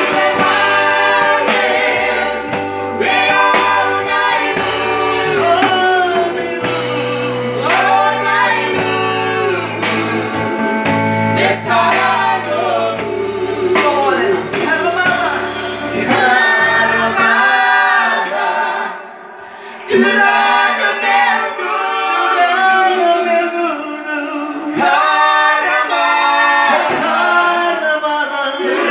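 Male and female worship singers singing a gospel song into microphones, with low sustained bass accompaniment that drops out a little past halfway, leaving the voices alone after a brief pause.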